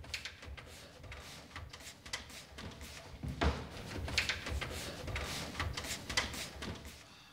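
Light taps, clicks and rubbing from handling a sliding glass shower door and its plastic magnetic seal strip as the strip is fitted and the doors are brought together. The handling gets busier about halfway through.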